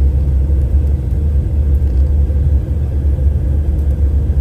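Steady low rumble inside an airliner cabin during descent on approach: engine and airflow noise heard from a window seat.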